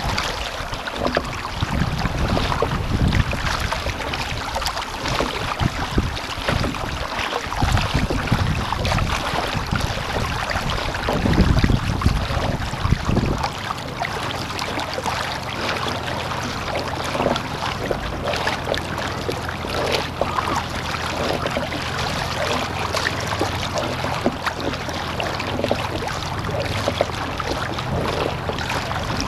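Wind buffeting the microphone in strong gusts, over choppy water splashing against the hull of a surfski being paddled hard, with paddle-blade splashes. A steady low hum comes in about halfway through.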